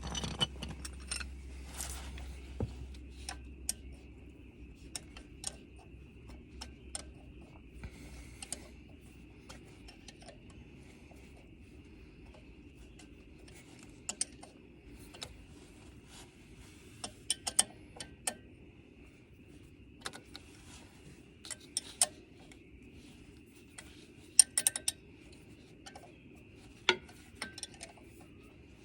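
Irregular metallic clinks and taps of hand tools and bolts against metal while reassembling the Kubota BX23S's HST fan and driveshaft, with clusters of sharper clinks in the second half.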